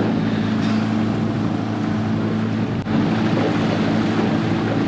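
A small fishing boat's motor running steadily at constant speed, an even hum under the rush of wind and water.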